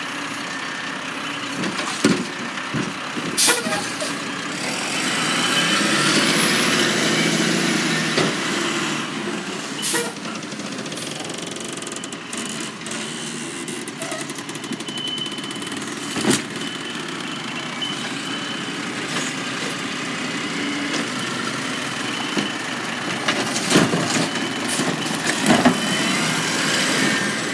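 Automated side-loading garbage truck running while its hydraulic arm dumps a trash cart and sets it back down. The engine rises for a few seconds as the arm works, and several sharp clanks come from the cart and arm.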